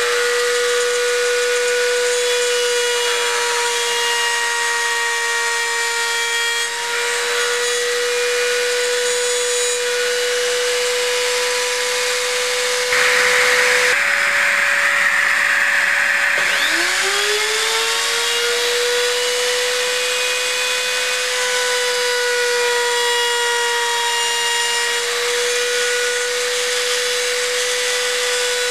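Electric router spinning a ball-bearing guided cutter in a router table with a steady high whine while a wooden pattern is fed against it. About halfway there is a few seconds of hissier sound, after which the whine swoops back up to pitch.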